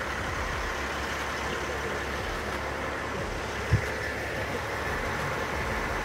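Heavy crane truck's diesel engine idling steadily with a low rumble, with one short low thump a little past halfway.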